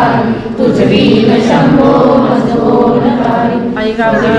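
A group of voices singing a Hindu devotional aarti hymn together in a steady chant-like melody.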